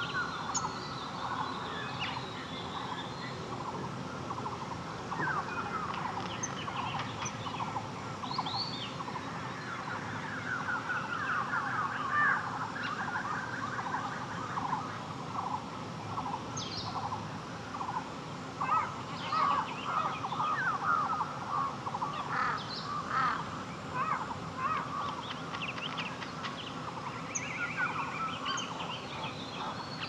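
Birds calling in dense bursts of quick, rising chirps, busiest about a third of the way in and again past the middle, over a steady low background hiss.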